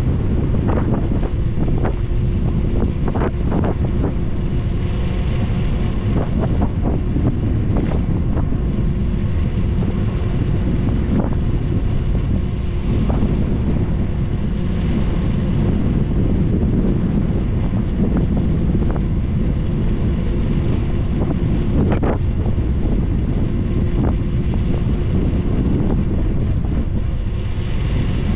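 Loud, steady wind rushing over the microphone of a camera moving quickly down a paved road, with a few small knocks.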